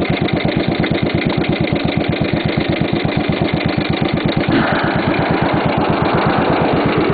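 Motorcycle engine idling at a standstill with an even, steady pulsing beat. A rushing noise joins it about halfway through.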